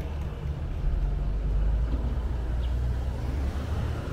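Steady low rumble of passing road traffic in a city street, with general street noise over it.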